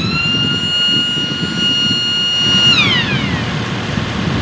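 Electric siren on a Kubota L3301 tractor winding up to a steady high wail, holding it, then winding down in pitch and dying away about three seconds in. The tractor's diesel engine runs underneath.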